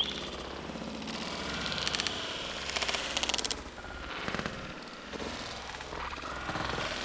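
Dry leaf litter and twigs rustling and crackling as someone pushes through dense undergrowth, in bursts about two and three seconds in.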